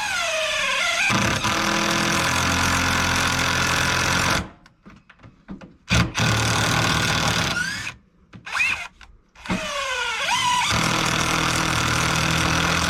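Power drill driving screws into wood framing in three long runs. Each run opens with a motor whine that dips and climbs as the screw bites, then holds steady until it stops.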